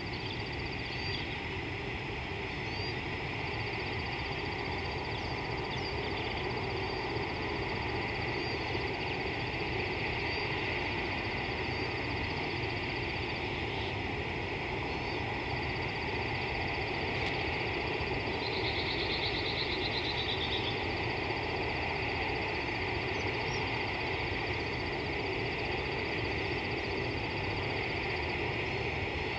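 Steady outdoor wildlife ambience: a continuous high, thin trill and a hissing chorus of calling animals over a low rumble of wind on the microphone, with a short, rapid pulsed call about nineteen seconds in.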